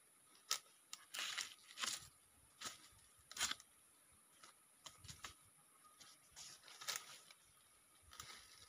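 Irregular crunching and rustling of sandalled feet stepping on dry leaves and loose soil, then of hands pressing soil around a newly planted chili seedling. The noises come in short bursts, most often in the first few seconds.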